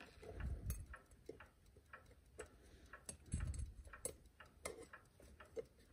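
Faint light knocks and small metallic clicks as a screwdriver starts the bezel screws on a Chelsea ship's strike clock's brass case, with the ticking of the running clock movement.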